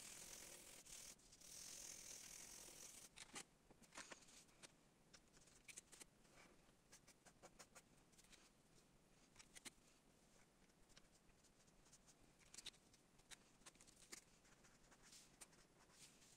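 Faint felt-tip marker strokes on paper: a scratchy hiss for about the first three seconds, then scattered soft ticks and taps of the pen.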